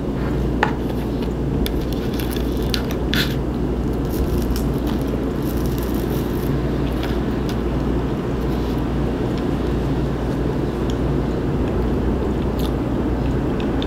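A steady low hum and rumble throughout, with a few faint clicks and small handling sounds of a person eating breakfast at a table: a fork on a plate and toast being broken by hand.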